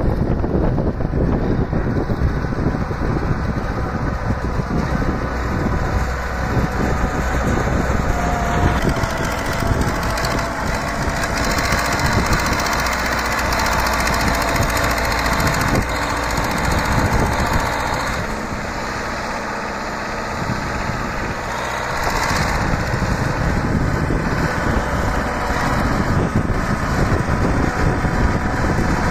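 DT-75 crawler tractor's diesel engine running hard, its dozer blade pushing manure into a pile, with a steady rapid knocking clatter. The engine is under heavy load and puffs black smoke; it eases off briefly about two-thirds of the way through, then comes back up.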